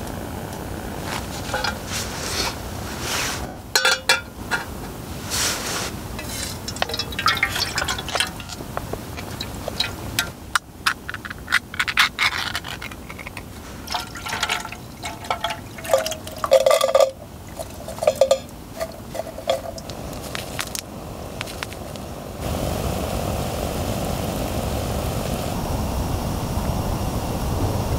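Thick liquid poured from a can into a metal pot on a canister gas stove, among scattered clinks and knocks of the can and cookware. About two-thirds of the way in, a steady hiss takes over.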